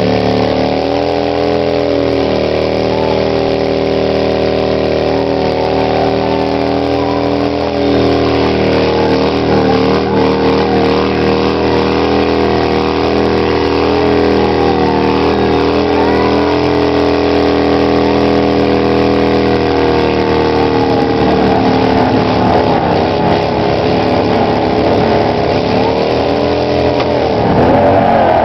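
A 2008 Harley-Davidson V-twin held at high revs in a burnout, the rear tyre spinning against the ground. The engine note holds mostly steady, with brief dips, then wavers up and down through the last several seconds.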